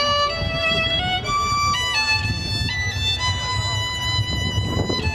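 Amplified violin playing a melody of long held notes that step up and down, over a low pulsing backing.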